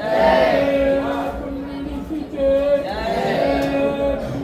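Several voices singing a Hindu devotional chant together, holding long notes between rising and falling phrases.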